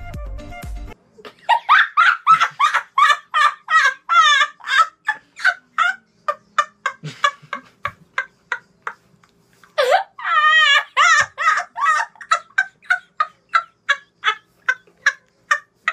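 A boy laughing hysterically in rapid high-pitched bursts, about three a second, that trail off, then break out again loud about ten seconds in.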